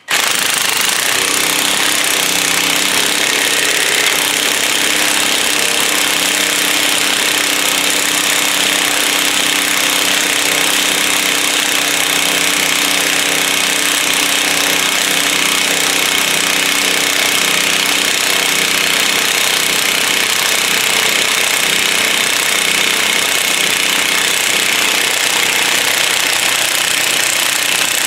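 20-volt cordless impact wrench hammering steadily and loudly without a break, turning the forcing screw of a bearing press to push the old front wheel bearing out of the steering knuckle.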